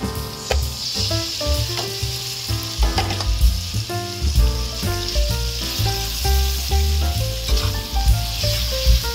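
Sliced raw pork sizzling in hot oil and fried garlic in a wok, the sizzle starting as the meat drops in about half a second in. Background music with a steady bass plays throughout.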